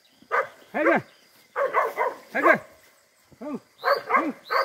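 A dog barking over and over, about two barks a second, with a brief gap about three seconds in.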